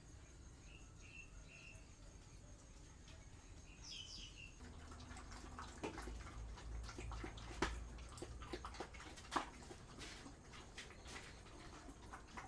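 A few faint bird chirps, then a run of clinks, knocks and scrapes from a spoon working food out of a metal cooking pot onto a feeding tray, with puppies eating from it. Two sharper clinks about halfway through stand out.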